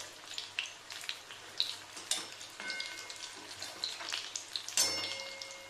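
Corn cheese balls deep-frying in hot oil in a kadhai: steady bubbling and crackling, with a spatula stirring them. Near the end the spatula knocks the pan once, leaving a brief ring.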